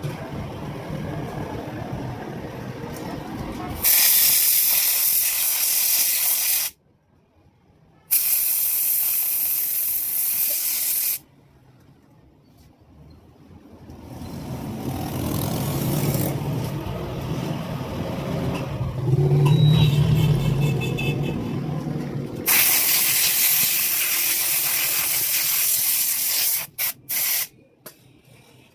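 Pressurized spray hissing in three long bursts, each a few seconds long and cut off sharply, then a few short puffs near the end. Between the bursts a lower running sound rises and falls.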